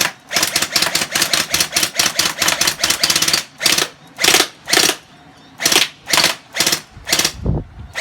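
Gel blaster firing on full auto, a rapid string of sharp shots about five a second, then slower single shots about half a second apart, with a low thump near the end.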